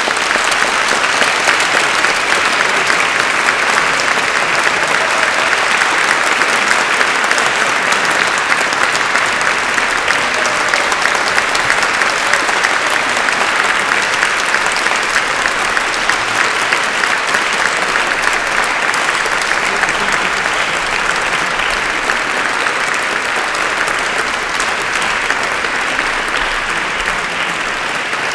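Large audience applauding: dense, even clapping that holds steady and eases slightly near the end.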